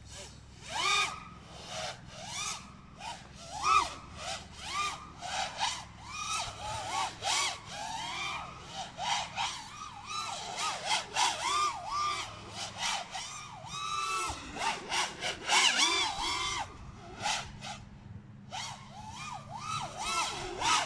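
FPV racing quadcopter's brushless motors and propellers whining in flight, the pitch swooping up and down in quick arches as the throttle is punched and chopped through flips and rolls, with a short lull near the end. It is being flown hard on a PID tuning test at a 1280°/s rate.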